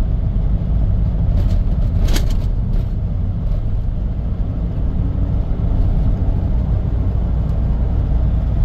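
Car driving, heard from inside the cabin: a steady low rumble of road and engine noise, with a brief sharper noise about two seconds in.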